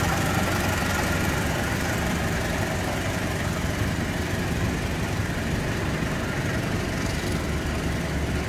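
Passenger coaches of a diesel-hauled long-distance train rolling slowly past on the rails, a steady low rumble that eases slightly after the first few seconds.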